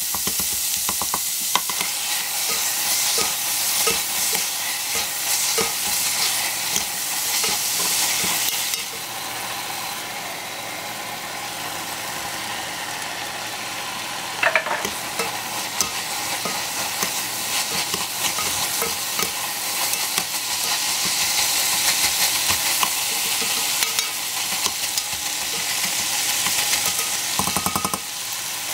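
Ground pork, onions and sliced mushrooms sizzling as they sauté in an enamel pot, with a plastic spoon stirring and scraping. The sizzle eases off for a stretch in the middle, and there is one short knock about halfway through.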